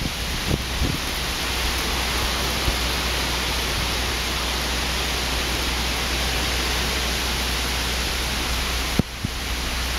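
Hurricane wind and heavy rain making a steady, even rush through the trees, with a low wind rumble on the microphone. A sharp click comes about nine seconds in, and the rush is a little quieter after it.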